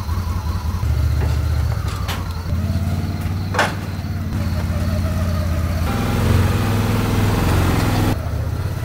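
Side-by-side UTV engine running as it is driven off a trailer and across the yard, its low note shifting as it moves, with two sharp knocks about two and three and a half seconds in.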